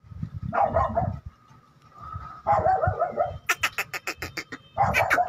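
Animal cries: three drawn-out, wavering calls, one near the start, one about halfway and one near the end, with a quick run of sharp clicks between the last two.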